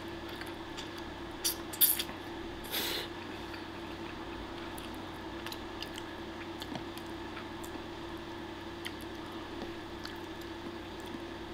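A person slurping and chewing spaghetti peperoncino: a few short sharp slurps between about one and a half and three seconds in, then quiet chewing and faint ticks of a fork on the plate over a steady low hum.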